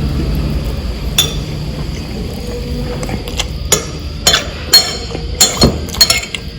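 Cutlery clinking against a plate of food, a series of sharp clinks that come more often in the second half.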